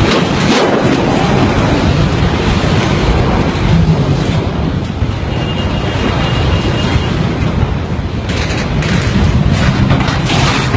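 Loud, steady rumble and hiss of wind buffeting a phone microphone, mixed with road traffic and truck noise.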